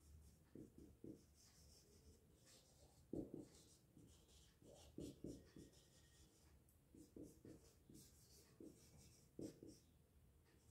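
Faint, short, irregular strokes of a marker pen writing on a whiteboard.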